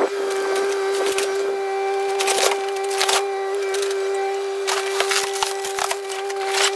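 Kubota KX057 mini excavator running with a steady whine while its bucket and thumb crush and splinter fiberglass and wood boat debris, heard as several crackling, crunching bursts.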